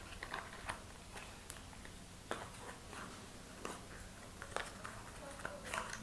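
Faint handling sounds of a small product box and its contents: scattered light clicks and taps, a couple a little sharper about two and three and a half seconds in.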